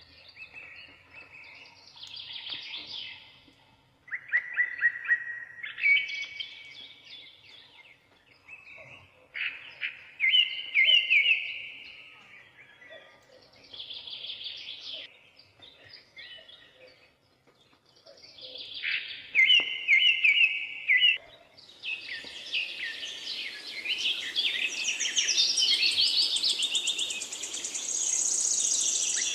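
Birds chirping and singing in short repeated trilling phrases with quiet gaps between them. From about twenty seconds in, several birds overlap in a denser, higher chorus.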